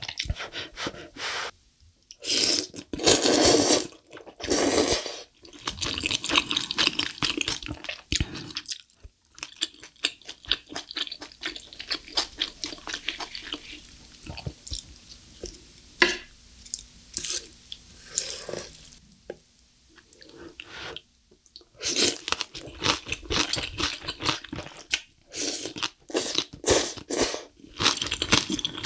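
Close-miked eating sounds: two long loud slurps of black bean noodles a few seconds in, then wet chewing with small clicks, and near the end a dense run of crunching as crunchy kimchi is chewed.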